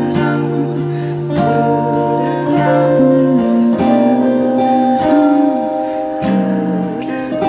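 Slow band music: electric and acoustic guitars playing, with sustained, wordless singing. New guitar notes are plucked about once a second under the held voices.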